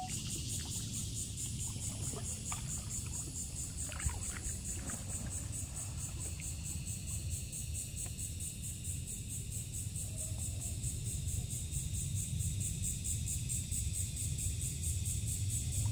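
Kayak out on a calm river: a steady low rumble of wind on the microphone with a few faint paddle drips early on, under a high, rapidly pulsing insect chorus from the trees along the bank.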